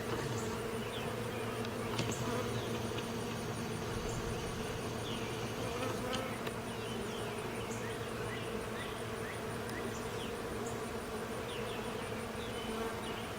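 Bees buzzing in a steady, continuous hum, with birds giving short high chirps on and off throughout.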